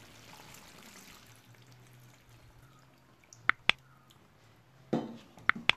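Coconut milk being poured into a clay pot of simmering jackfruit curry and stirred in, with sharp clinks of utensils against the pot: two quick ones about three and a half seconds in, then a short scrape and two more clinks near the end.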